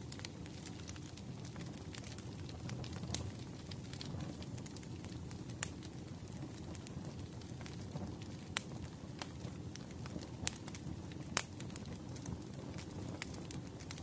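Crackling wood fire: a steady low rumble of burning logs with scattered sharp pops, a few of them louder than the rest.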